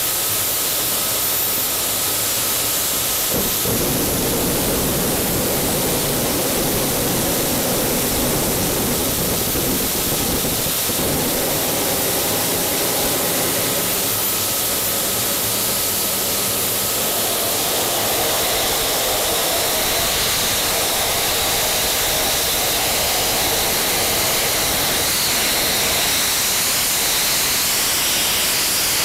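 Homemade air-breathing jet engine with a stainless de Laval nozzle, fed by an electric blower, firing with a loud, steady rushing roar of flame and air. A faint whistle in the first third fades away, and a higher whine comes in about two-thirds of the way through.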